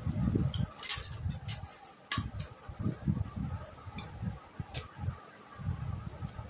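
Close-miked eating sounds: chewing as a run of short, soft low pulses, with sharp wet mouth clicks every second or so.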